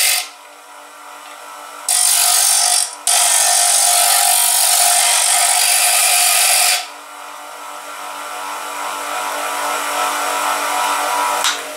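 Bench grinder running with a steady motor hum while a small metal part is pressed to its grinding wheel, giving loud hissing grinding spells that stop and start, the longest nearly four seconds; after about seven seconds in the grinder runs on without load. The part is being ground down flush where material broke out.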